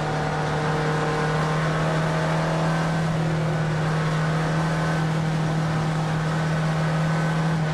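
Race-prepared Volkswagen Fusca (Beetle) with a VW AP engine, heard from inside its stripped cockpit, running hard at steady, nearly constant revs under load, over road and wind noise.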